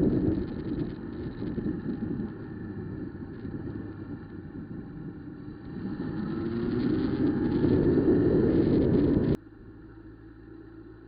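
Honda CB1000R inline-four motorcycle engine under way, mixed with heavy wind noise on the microphone. The engine note rises as the bike accelerates for a few seconds, then the sound drops suddenly to a much quieter hum near the end.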